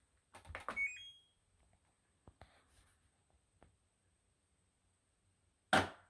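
LG front-loading washing machine's control panel: a button press clicks and the machine answers with a few short rising electronic beeps. A few faint clicks follow, then a single sharp clunk near the end.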